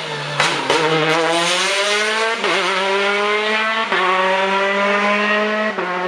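Rally car accelerating hard out of a corner and past, the engine climbing in pitch through the gears with three quick upshifts, each a short dip before the pitch climbs again. A few sharp cracks sound in the first second.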